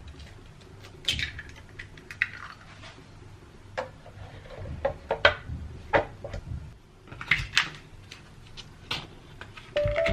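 Kitchen handling sounds: scattered clicks, knocks and light clatter of dishes and utensils being moved and set down, with a few short rustles. Music comes in near the end.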